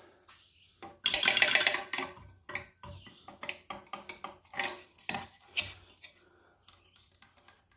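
Metal parts and hand tools clinking and rattling while an old air compressor is taken apart: a loud rattling clatter about a second in, then scattered light clinks and taps.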